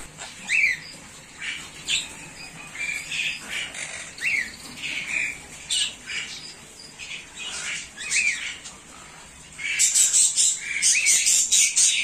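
Monk parakeets (quaker parrots) squawking and chirping: short calls every second or so, several with a quick rise and fall in pitch, growing into a dense run of calls near the end.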